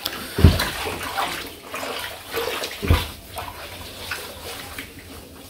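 Water sloshing and splashing as wet cattle feed is stirred by hand in a concrete trough, with two dull thumps, one about half a second in and one near three seconds in.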